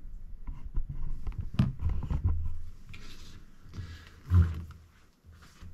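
Handling noise: low rumbles, scattered knocks and rustles as the camera is moved and set down, with a louder knock about four and a half seconds in.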